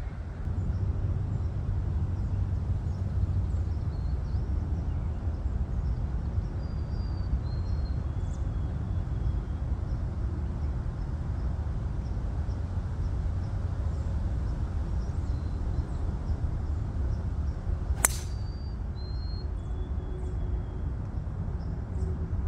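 A single sharp crack of a Titleist TS4 driver striking a golf ball off the tee, about three-quarters of the way in, over a steady low rumble with a few short bird chirps.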